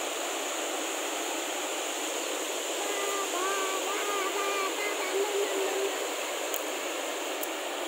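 Dam overflow water rushing steadily over rock slabs as white water, a continuous even rush. A faint distant voice comes through in the middle.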